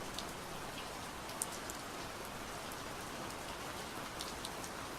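Steady gentle rain falling, an even hiss with scattered small drop ticks.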